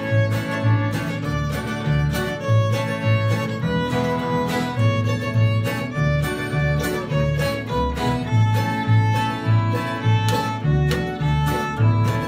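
Acoustic string band playing an instrumental folk tune: fiddle carrying the melody over strummed mandolin and guitar, with a plucked upright bass keeping a steady beat.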